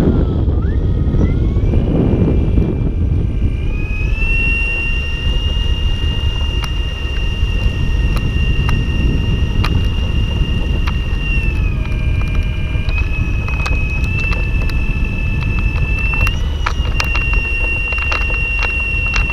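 Electric motor of a weight-shift ultralight trike running at low power while it taxis. It makes a high steady whine that rises about a second in and then steps up and down in pitch a few times, over a low rumble, with a few light clicks near the end.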